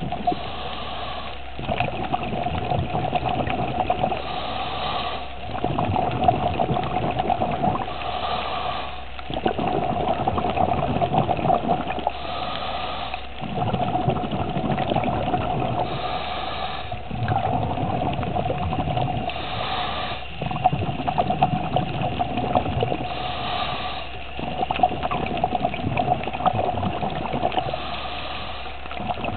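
Scuba diver breathing through a regulator underwater: a short hiss of each inhale, then a longer rush of exhaled bubbles, repeating about every four seconds over a steady hum.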